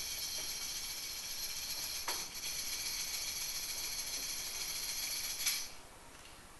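Metal jingles, like a tambourine's, shaken in a steady shimmer, with a brief accent about two seconds in and a stop about a second before the end.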